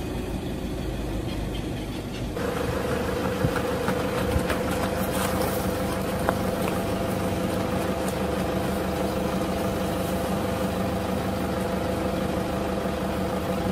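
Vehicle engine idling with a steady low rumble; a steady hum joins in about two and a half seconds in, with a few faint clicks.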